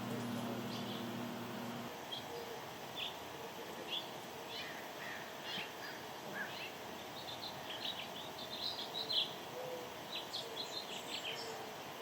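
Sparrows chirping: a string of short, quick chirps that come thicker in the second half. A low steady hum stops about two seconds in.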